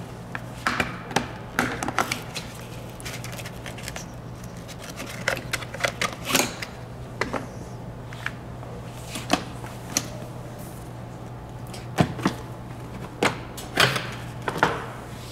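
Irregular clicks and knocks of the hard plastic hip guard and trim parts of a Grammer MSG65 seat being handled and pressed into place, in small clusters with pauses between. A steady low hum runs underneath.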